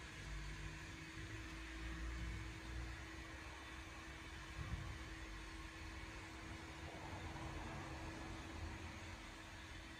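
Faint background noise: a steady low hum with uneven low rumbling, no engine running.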